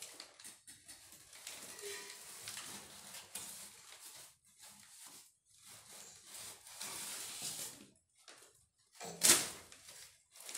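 Large brown paper bag rustling and crinkling in irregular spurts as it is pulled and crumpled by hand, with one louder, sharper noise about nine seconds in.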